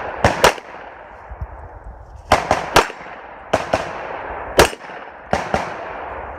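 Rifle shots fired in an uneven string, about nine cracks in singles and quick pairs, each trailing off in an echo.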